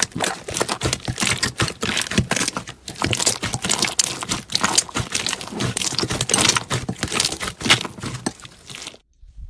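Slime being squeezed and worked by hand, giving dense, rapid crackling and popping clicks. It cuts off suddenly near the end.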